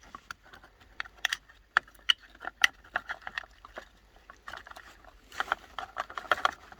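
Light plastic clicks, knocks and rattling as the opened Makita 18 V battery pack and its cell block are handled. The sound is scattered sharp taps, with a denser spell of clatter about five seconds in.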